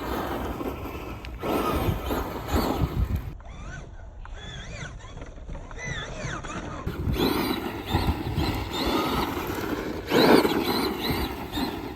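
Traxxas Craniac RC monster truck running: its electric motor whines up and down in pitch as it speeds up and slows, over a rough outdoor noise of tyres and wind on the microphone.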